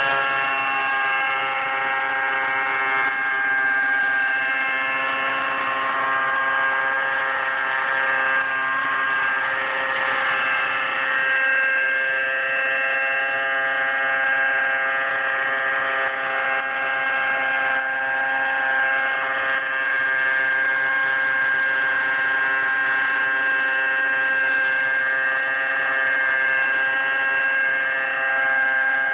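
Align T-Rex 600 flybarless RC helicopter's nitro glow engine and rotors running steadily as it hovers and manoeuvres low, a constant high-pitched engine tone whose pitch drifts only slightly.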